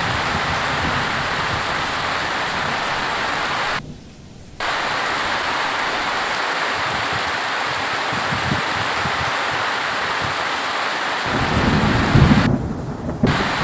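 Steady downpour of rain hissing, with a low rumble of thunder swelling up about eleven seconds in. The rain briefly cuts out for under a second near four seconds in.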